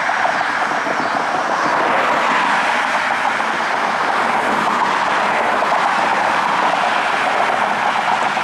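Steady rushing road noise of traffic, including the engine and tyres of a fire truck pulling away.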